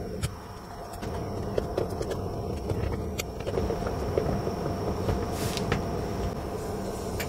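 Small hand screwdriver driving tiny screws through a metal hinge into plywood: a few scattered short clicks and scrapes, over a steady low hum.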